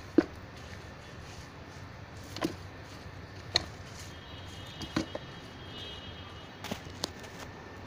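Sharp knocks and scrapes, about six, each a second or so apart, as a wooden tool turns and strikes through compost in a plastic crate.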